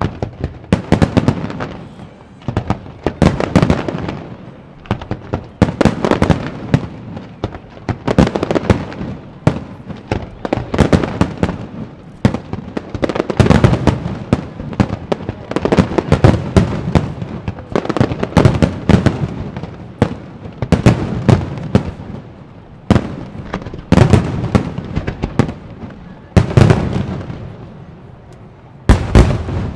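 Fireworks display: volleys of aerial shells bursting in dense clusters of rapid bangs and crackles, a new volley every two to three seconds, with a sharp double bang near the end.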